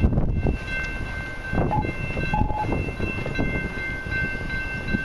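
CN freight train approaching, heard at a distance as a low rumble. Several steady high tones hold throughout, with two short tones about a second and a half and two and a half seconds in.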